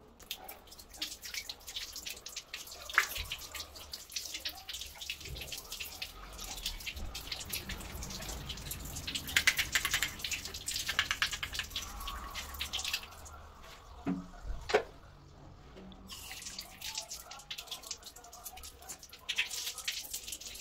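Water running and splashing, with many fine drips and spatters. The flow eases for a few seconds about two-thirds through, where a couple of knocks are heard, then picks up again.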